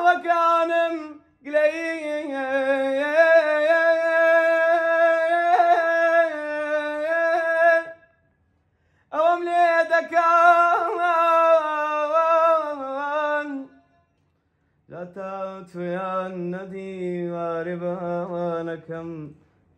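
A man singing unaccompanied in long, drawn-out, wavering phrases in a high register, with short breaks between them. In the last few seconds a lower-pitched voice takes up the melody.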